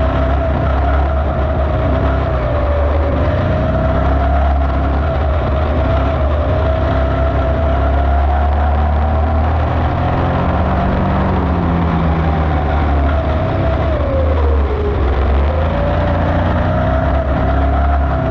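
Dirt-track slingshot race car's engine running hard at racing speed, heard from on board. Its pitch wavers up and down with the throttle, dips briefly about fifteen seconds in, and climbs again.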